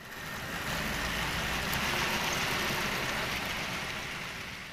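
HO-scale model train running past close by: a steady rattle of wheels on the track over a low motor hum, growing louder in the first second and easing off near the end.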